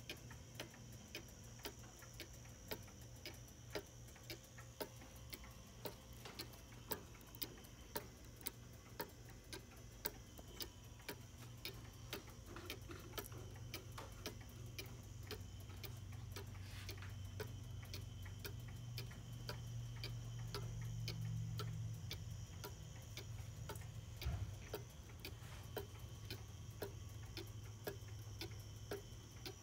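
Antique Johann Baptist Beha Black Forest cuckoo clock's chain-driven pendulum movement ticking steadily and evenly. A low rumble swells in the middle, and there is a single soft knock about 24 seconds in.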